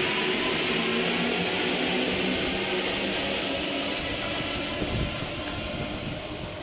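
A rubber-tyred MP14 Paris Métro train runs past and pulls away into the tunnel, its noise fading toward the end. A short low thump comes about five seconds in.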